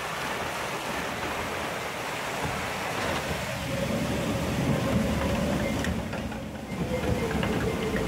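Water rushing and churning in a log flume channel; about three seconds in, the boat is taken up the lift-hill conveyor and a steady mechanical hum and low rumble from the lift join the water noise.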